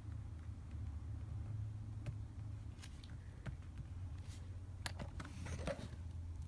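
A handful of scattered sharp clicks from a computer mouse and keyboard, over a steady low hum.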